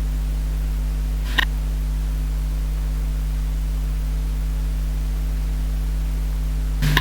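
Steady electrical mains hum with a hiss of background noise, with two brief clicks: one about a second and a half in, one near the end.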